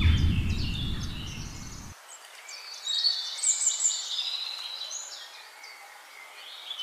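Birds chirping and calling throughout, over the fading tail of a deep low boom that cuts off about two seconds in.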